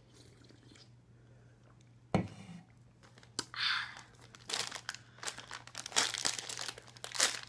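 A single thump about two seconds in, then a snack wrapper crinkling and tearing as it is pulled open with hands and teeth.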